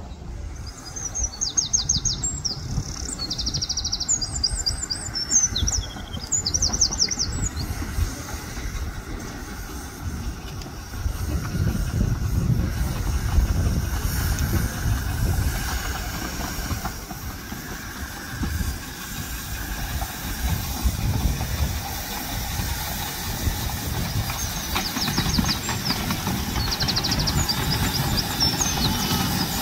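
A 15-inch gauge miniature steam locomotive moving slowly along the track with a low rumbling that grows louder from about eleven seconds in. Birds chirp in quick high trills during the first few seconds and again near the end.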